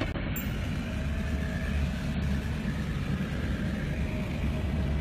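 Steady low rumble of a vehicle heard from inside its cabin, with a faint hiss over it.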